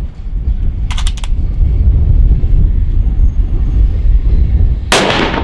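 Strong wind buffeting the microphone, a steady low rumble, with a few quick sharp clicks about a second in and a single loud rifle shot near the end.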